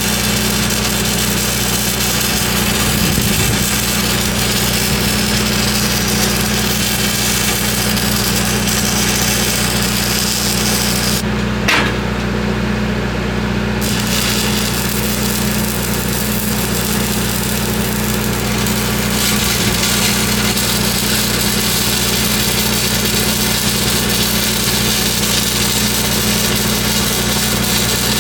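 Arc welding a downhill bead on a 12-inch pipe: a steady crackling hiss from the arc over a constant engine hum. Near the middle the hiss breaks off for about two seconds, with a sharp click.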